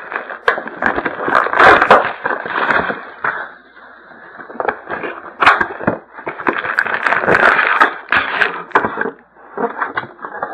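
Plastic wrapping and cardboard packaging crinkling and tearing as a sealed trading-card box is opened, with sharp crackles. It comes in two stretches of handling with a short lull between them.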